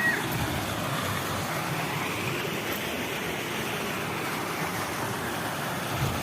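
Flowing water rushing steadily, a continuous even noise with a low rumble underneath.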